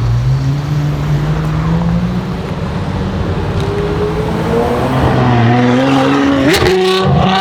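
V12 sports car engine running loud under acceleration, its pitch climbing steadily over several seconds, then sweeping up sharply near the end.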